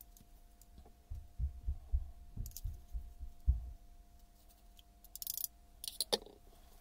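A run of dull, low thumps from handling on the bench, then a short scrape and a sharp knock of a tool against an open metal tin about six seconds in, over a faint steady hum.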